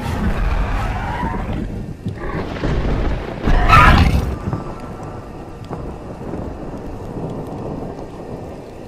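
Thunderstorm sound effect: thunder rumbling over steady rain. The loudest peak comes about three and a half seconds in, then it settles to a steady rain hiss, with background music underneath.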